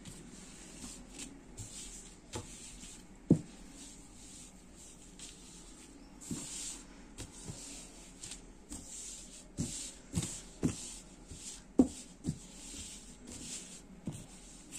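Black stretch-mesh fabric rustling as hands lift, spread and fold a garment on a table. A few soft thumps break in, the loudest about three seconds in and several more in the second half.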